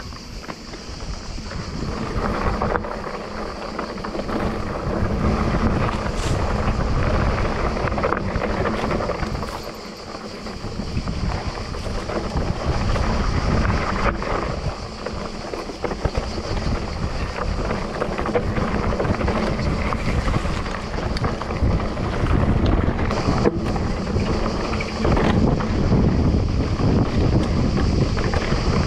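Wind buffeting the microphone of a Cube Reaction mountain bike rolling fast down a dirt singletrack, with tyre noise on the dirt and scattered rattles and knocks from the bike over bumps. It picks up in the first couple of seconds as the bike gathers speed.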